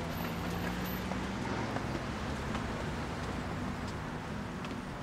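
Steady low rumble with an even hiss of background ambience, without distinct events.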